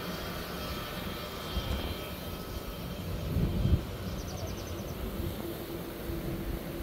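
Distant jet airliner engines whining steadily as the plane taxis, the whine fading after the first couple of seconds. A brief low rumble comes about three and a half seconds in.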